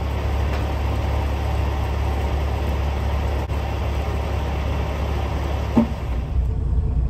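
Diesel semi-truck engine idling with a steady low hum, while diesel exhaust fluid is topped up at the fuel island. A brief squeak comes near the end.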